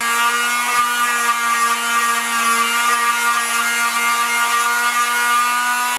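Electric palm sander running steadily against a dry Osage orange walking stick: an even, unchanging motor whine over the hiss of the pad on the wood.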